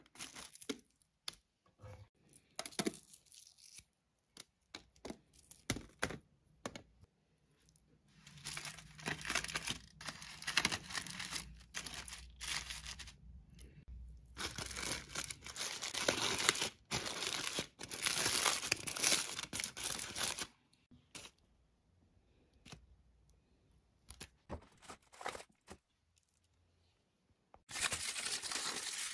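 Aluminium foil crinkling and rustling as hands work in foil parcels, in irregular bursts. It is busiest through the middle, goes quiet for several seconds, then grows loud again near the end.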